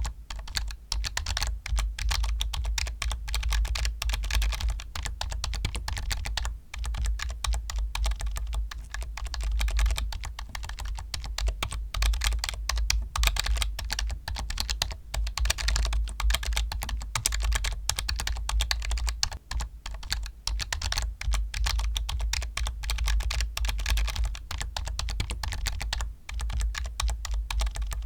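Continuous fast typing on a computer keyboard: a dense stream of key clicks, with a few brief pauses.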